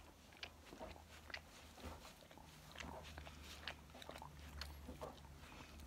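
English setter nibbling and mouthing at a hat on a person's head: faint, scattered small clicks and mouth noises over a low steady hum.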